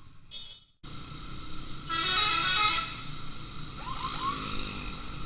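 Motorcycle-mounted telolet air horn sounding a loud, multi-tone blast of about a second, starting about two seconds in, over steady traffic rumble.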